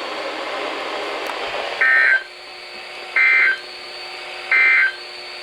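NOAA Weather Radio's EAS end-of-message signal: three short two-tone digital data bursts about a second apart, over steady radio hiss. It marks the end of the weekly test message.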